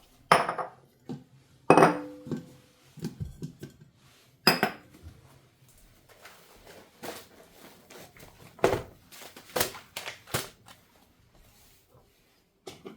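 Dishes and kitchen utensils being handled and set down: a run of sharp clinks and knocks, one ringing briefly about two seconds in.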